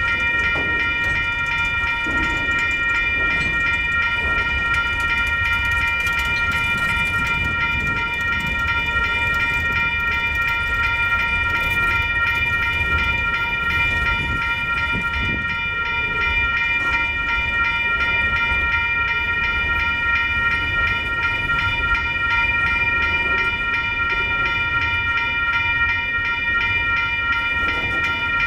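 Freight train's boxcars rolling through a grade crossing, the wheels rumbling low on the rails, while the crossing bell rings steadily over it.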